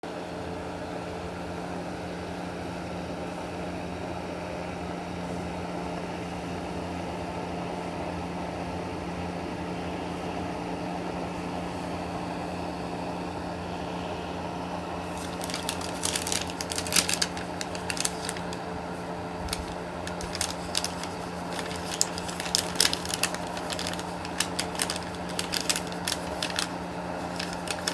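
Steady low electrical hum with a constant tone. From about halfway on, irregular sharp clicks and taps of small packaged items being handled and set down.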